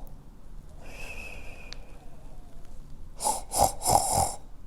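A person imitating loud, comic snoring: a whistling out-breath about a second in, then a rattling, snorting in-breath near the end.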